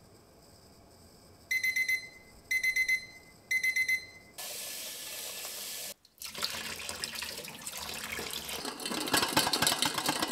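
A digital kitchen timer beeps at the end of its countdown: three bursts of rapid high beeps about a second apart. Then a tap runs into a steel pan of boiled quail eggs. After about six seconds, the eggs rattle and click against the steel pot as the lidded pot is shaken, which cracks their shells for peeling, growing louder near the end.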